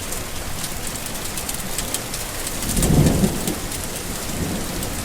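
Steady summer rain pattering, with scattered sharper drop hits, and a low rumble of thunder that swells about three seconds in and fades.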